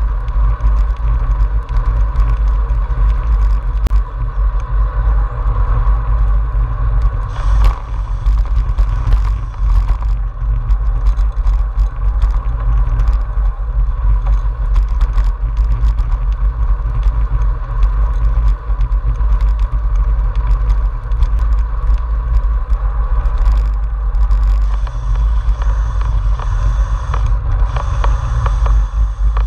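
Road bike rolling along rough country tarmac, heard through a handlebar-mounted GoPro Hero 4: a steady deep rumble of wind and road vibration on the camera, with frequent small clicks and rattles from the bike.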